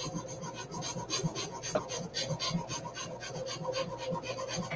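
Jeweler's saw cutting through metal sheet on a bench pin, with quick, even back-and-forth strokes, about four a second, that stop near the end.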